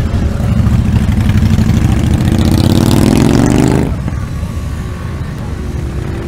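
Cruiser motorcycles riding off past at close range, engines running loud. One revs up in a rising pitch about halfway through. The sound drops off abruptly about four seconds in, leaving quieter engines ticking over and rolling by.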